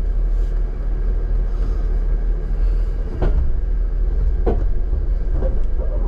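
Jeep crawling slowly down a rocky off-road trail: a steady low engine and drivetrain rumble, with a few sharp knocks and short creaks from about three seconds in as it rolls over the rocks.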